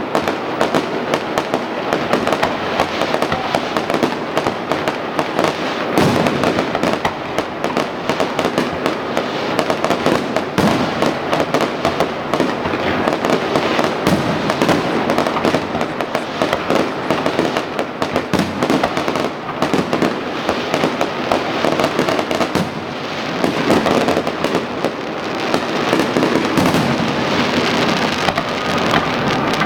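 Fireworks display: a dense, unbroken run of bangs and crackling, with a few heavier bangs among them.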